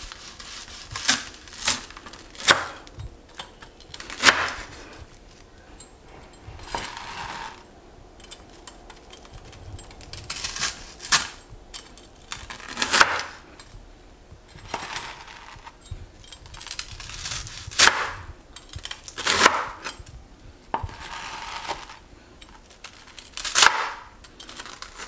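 A large kitchen knife trimming the crusts off a toasted sandwich: crunchy crackling as the blade cuts through the toast, and sharp knocks of the blade on a plastic cutting board every few seconds.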